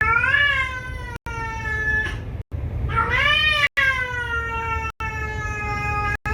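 Cat giving two long, drawn-out yowling meows, each rising in pitch and then slowly falling away.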